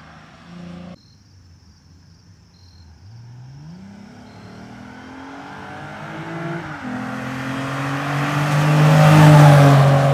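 Lexus RC350's V6 with a Greddy aftermarket exhaust accelerating hard toward and past, rising in pitch, shifting up about two-thirds of the way in, and loudest as it goes by near the end.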